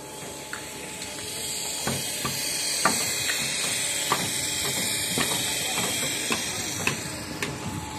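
Construction site noise: a steady hiss that swells about a second in and eases near the end, with scattered sharp clicks and knocks of metal and timber.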